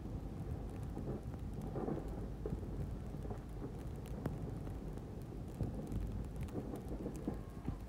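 Plow truck running while its angled plow blade pushes and scrapes through snow: a steady low rumble with irregular scraping and crunching on top.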